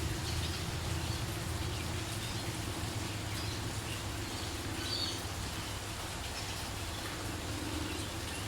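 Steady light rain falling, with a few short bird chirps over it, the clearest about five seconds in.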